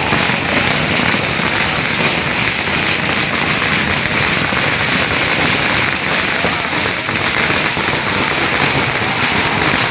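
Loud, steady din of a packed street crowd, thick with rapid crackling and no clear single voice.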